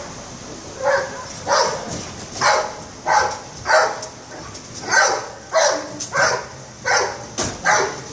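Police dog barking repeatedly, about eleven sharp barks spaced a half second to a second apart.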